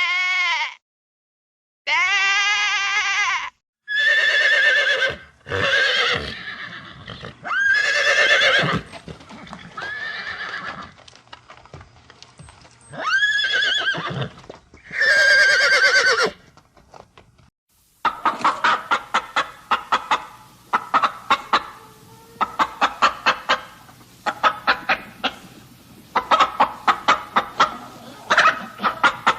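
Farm animals calling in turn: a series of drawn-out, pitched bleating calls over the first half, then, about eighteen seconds in, a fast run of short clucks from chickens.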